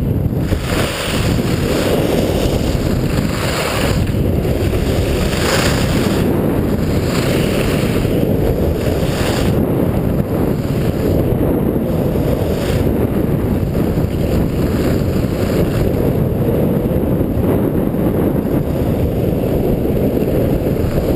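Wind buffeting the microphone of a skier's camera during a fast descent on a groomed piste, a steady loud rumble, with surges of hiss from the skis carving turns on the packed snow.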